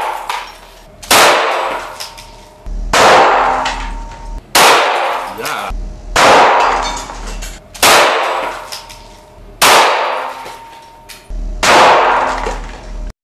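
Seven pistol shots fired one at a time, about every one and a half to two seconds, the bullets punching through a rubber-lined ceramic vase. Each shot echoes off concrete walls and fades slowly.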